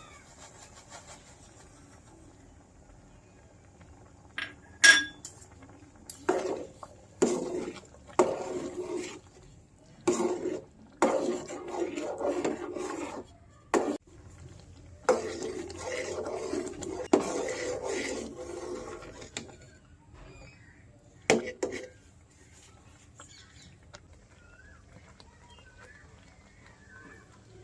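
Metal spoon clinking and scraping against cookware: a sharp ringing clink about five seconds in, then a series of scraping strokes, and another clink near the end.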